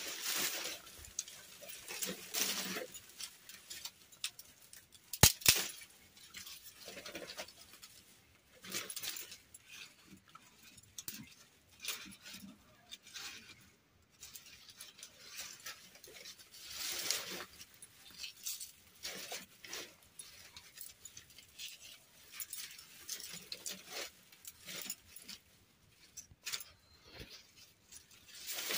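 Dry twigs and stalks rustling and crackling in uneven bursts as they are handled and pushed into a mud wood-fired stove, with one sharp crack about five seconds in, the loudest sound.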